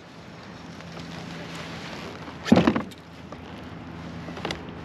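Fishing reel being wound in against a hooked largemouth bass, giving a steady low hum. One loud, brief burst of noise comes about two and a half seconds in, and a faint click comes near the end.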